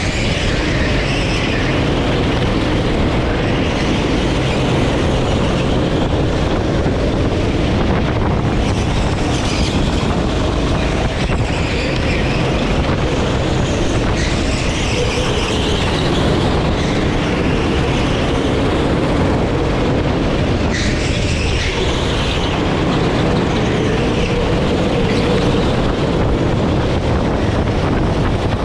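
Sodi rental go-kart engine running flat out around a track, its pitch repeatedly rising and falling as the kart accelerates and slows for corners, with a steady rush of wind and tyre noise.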